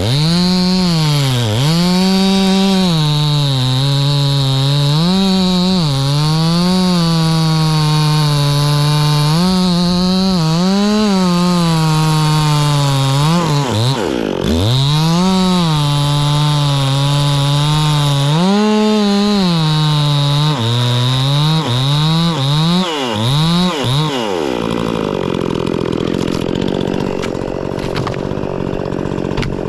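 Chainsaw cutting maple wood, its engine pitch repeatedly sagging under load and climbing back as the chain bites and frees. About 25 seconds in the cutting stops and the saw drops to a lower, steadier sound.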